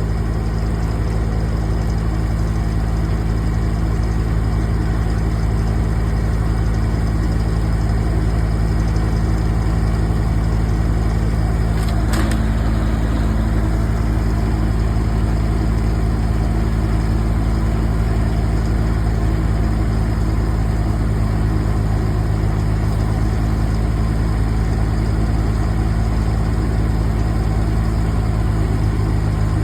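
An engine runs steadily at an even idle with a deep hum, and a single sharp click comes about twelve seconds in.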